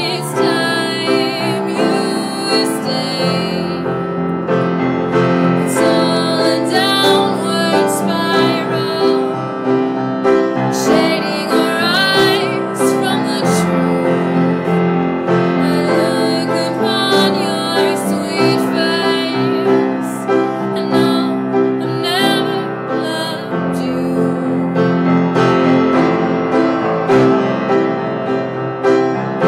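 Instrumental passage of a song: piano-led music with sustained chords, recorded through a phone.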